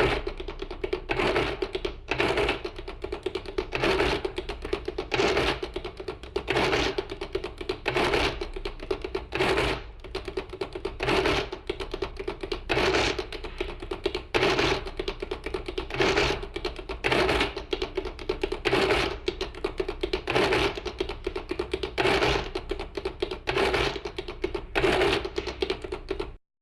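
Electric adding machine running: a steady motor hum, with keys clicking and a loud clatter from the mechanism about every second and a half as it cycles through each entry.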